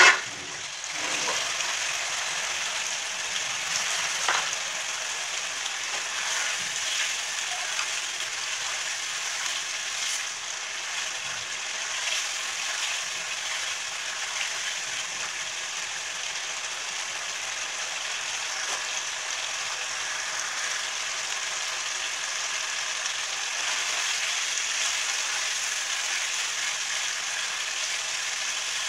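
Chicken karahi sizzling steadily as it fries in ghee in a non-stick pan, at the bhuna stage of cooking it down. A few light scrapes and taps come from a spatula stirring it.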